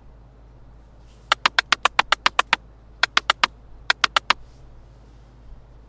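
A quick run of about ten sharp, evenly spaced clicks, then two shorter runs of four clicks each.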